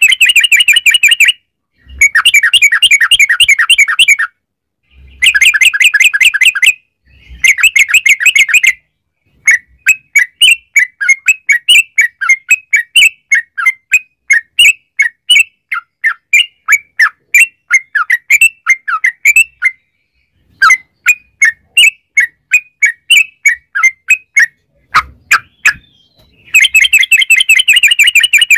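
Yellow-vented bulbul (trucukan) song: bursts of rapid trilled notes one to two seconds long with short silences between, then a long run of separate chirping notes, about four a second, from about ten seconds in, before a rapid trill returns near the end.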